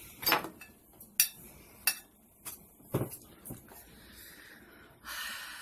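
A metal spoon scooping potted meat and spreading it on bread: several sharp clinks of the spoon against the dish, roughly every half second, then a longer scrape near the end.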